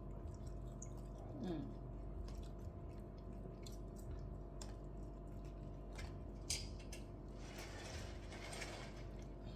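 Quiet eating at a table: faint chewing, with a few short clicks scattered through, over a steady low hum.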